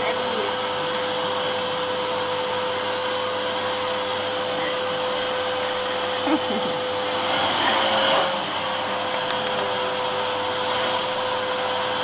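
Vacuum cleaner running steadily, a constant motor whine over rushing air, its nozzle on a metal wand working over a tabby cat's fur; briefly a little louder about eight seconds in.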